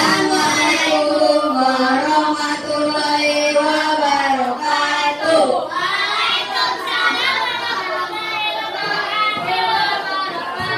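Children singing, led by a girl at a microphone, with long held notes.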